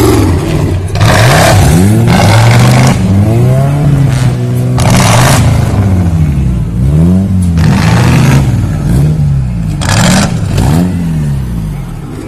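Off-road buggy's engine revving hard again and again, its pitch climbing and dropping every second or so. Several short, loud bursts of noise break in over it.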